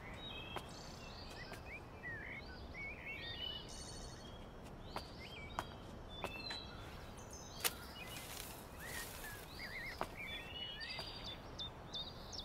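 Several small birds chirping and twittering over a low steady background hiss, with a few sharp clicks scattered through.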